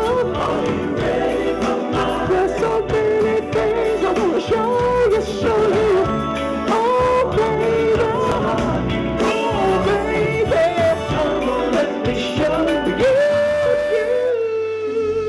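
Live R&B/funk band playing with a singer's melodic line over bass and drums. About 14 seconds in the band drops out, leaving a held chord.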